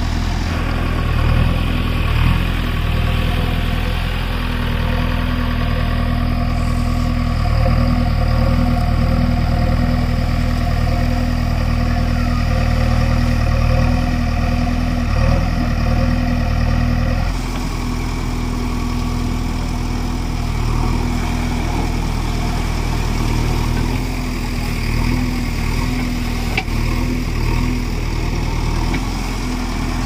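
JCB 3DX backhoe loader's diesel engine running steadily, its note wavering slightly; the sound changes abruptly a little past halfway.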